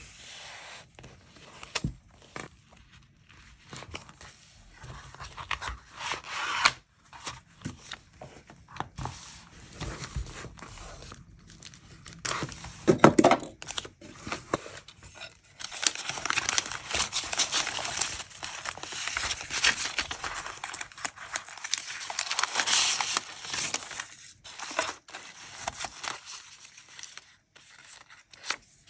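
Paper rustling and crinkling as hands rummage through a wooden box of paper tickets and scraps, with scattered light taps. About halfway through, a wooden knock from handling the pine box's lid is the loudest sound.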